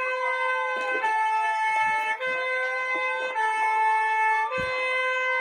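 EAS-style emergency alert alarm: stacked steady tones alternating between two chords about once a second, with a siren tone gliding slowly down and back up beneath them.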